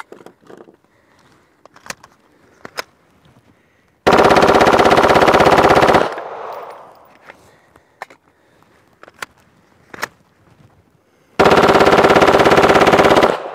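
A 9mm Glock 17 converted to full auto with an auto sear, firing two sustained bursts of about two seconds each, with an echo trailing off after the first. Faint clicks and knocks of gun handling come between the bursts. The pistol is being fired continuously in a meltdown torture test.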